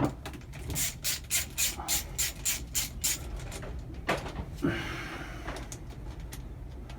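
A hand tool worked in quick, even strokes, about three or four a second, then two knocks about four seconds in.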